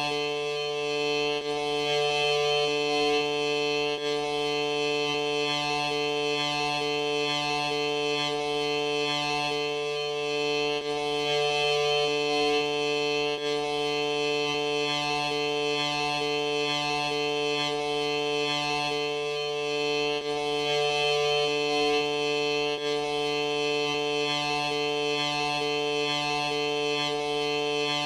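Steady, music-like drone of several sustained tones, one lower note briefly breaking off every nine or ten seconds.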